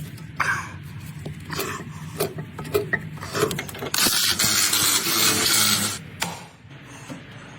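Irregular clicks and knocks, then a loud hiss lasting about two seconds, starting about four seconds in.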